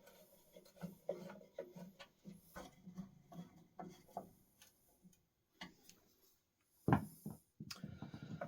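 Light clicks, taps and rubbing of metal parts being handled as the pump cover is fitted back onto a solvent parts washer, with a louder knock about seven seconds in.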